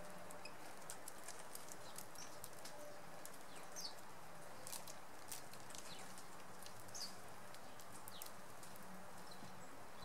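Goldfinches pecking and husking sunflower seeds on a wooden bird table: a scatter of sharp little clicks and taps, with a few brief high chirps from birds now and then.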